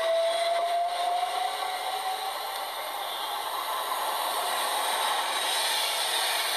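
Electric passenger train pulling away from a platform, its traction motors giving a slowly rising whine that fades after two or three seconds, over steady rolling noise.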